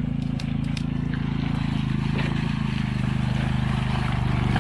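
John Deere Gator utility vehicle's engine running steadily as it drives through deep mud ruts, growing louder as it comes close.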